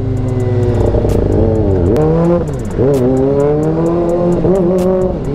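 Kawasaki ZX-25R's 250cc inline-four engine running through an AR full-system aftermarket exhaust. The revs dip and jump back up twice, about two and nearly three seconds in: downshifts with the auto-blipper matching revs as the bike slows.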